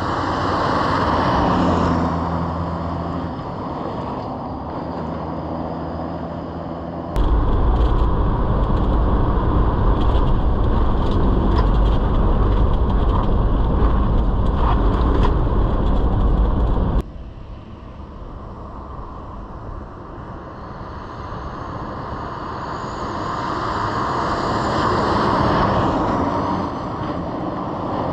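Toyota Land Cruiser 80 series driving through a cone lane-change course. Its engine and tyres are first heard as a steady hum, then, about seven seconds in, as a much louder low rumble with rattles and knocks from inside the cabin until about seventeen seconds in, then from beside the track, swelling and easing off near the end.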